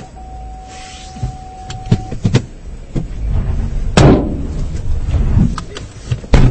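Car sounds: a steady low rumble with a thin steady tone for about the first two seconds, a few sharp knocks, and one loud heavy thump about four seconds in.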